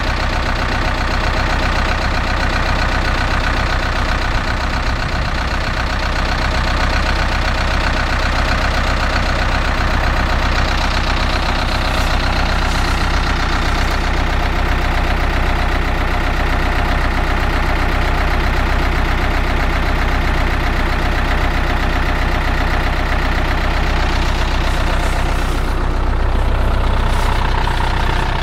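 Mitsubishi Canter tipper truck's 3.3-litre turbo diesel engine idling steadily, a little louder near the end.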